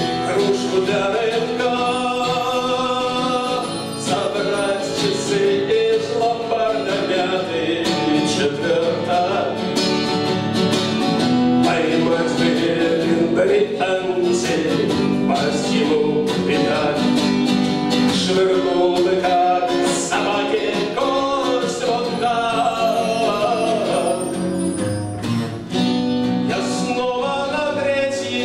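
Live acoustic song: a man singing, accompanied by strummed acoustic guitar and bayan (button accordion).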